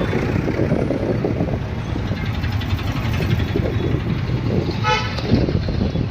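Steady rumble of street traffic, with a vehicle horn sounding briefly about five seconds in.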